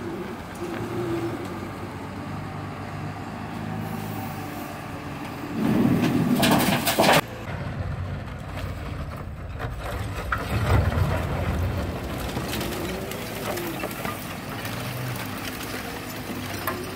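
Diesel engine of a Hyundai HL770-9A wheel loader running while it works debris, its pitch rising and falling at times. About six seconds in, a loud burst of noise lasts about a second and a half and stops abruptly, and a heavier low surge comes around the middle.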